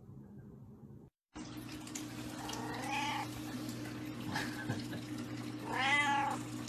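A domestic cat meowing twice, about three seconds apart, each meow rising and then falling in pitch, the second one louder. A steady low hum runs beneath.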